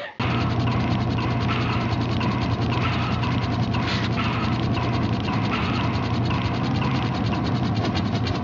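A steady mechanical running sound: rapid, even clicking over a low hum, starting abruptly just after the start.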